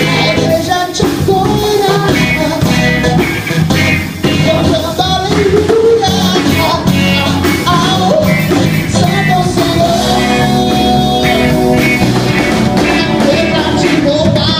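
Live rock band playing with a male singer, electric guitar, bass, keyboard and drum kit.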